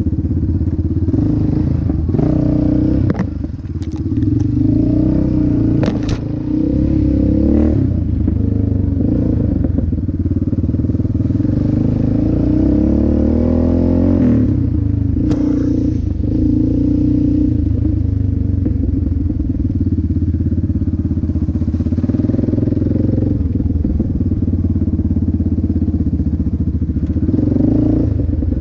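Yamaha Raptor 700R sport ATV's single-cylinder four-stroke engine running under way, its revs rising and falling with the throttle. A few sharp knocks break in during the first half.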